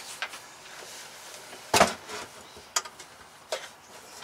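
A few short knocks and clunks, the loudest about two seconds in, from a power inverter's casing being handled and set against the plywood wall of a battery box.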